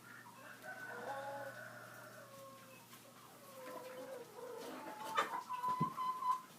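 A rooster crowing in long drawn-out calls, about three in a row. Near the end there are a couple of sharp knocks, which are the loudest sounds.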